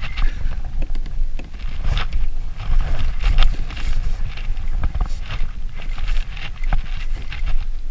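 Wind rumbling on the microphone and water sloshing and splashing against a kayak on choppy water, with irregular clicks and splashes as a spinning reel is cranked in on a hooked striped bass.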